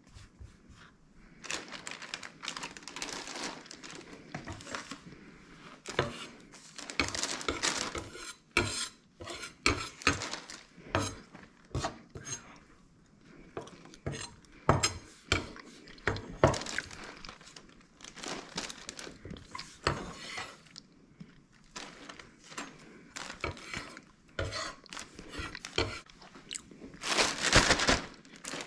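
Kitchen food-prep handling: a chef's knife knocking and scraping on a wooden cutting board and hands gathering shredded cheese, in a run of irregular clicks and knocks. Near the end a plastic zip-top bag crinkles loudly as it is opened.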